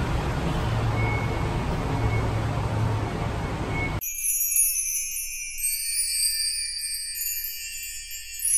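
Steady station background noise with a low hum, which cuts off about halfway. Light background music of high tinkling chimes and bells takes over.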